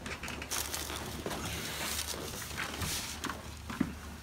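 Rustling and shuffling of a person turning over on a padded chiropractic treatment table, with a couple of light knocks near the end.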